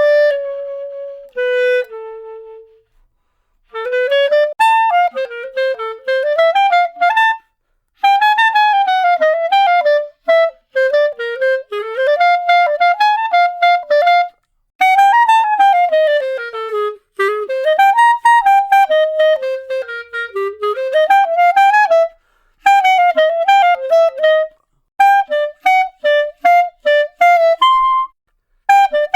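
Solo clarinet playing quick melodic runs that rise and fall, in phrases broken by short pauses. It opens with a few held notes stepping down, then a gap of about a second.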